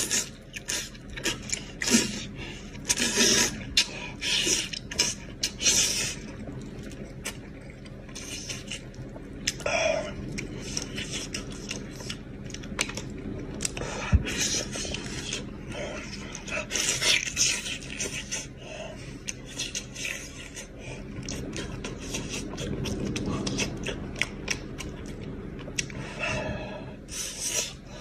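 Close-up mouth sounds of a person eating braised goat's head: irregular chewing, sucking and slurping as meat is stripped off the bones, with lip smacks and one sharp click about halfway through.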